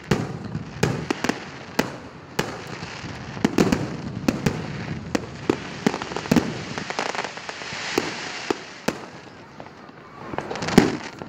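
Aerial fireworks shells bursting overhead: a run of sharp bangs at irregular spacing, several a second at times, with the loudest bang near the end.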